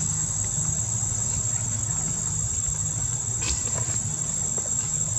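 Steady, high-pitched chorus of insects trilling without a break, over a low steady hum, with a few faint clicks.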